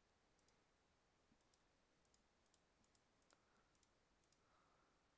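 Near silence with a string of faint computer mouse clicks, some in quick pairs, as breakpoints are clicked through one after another.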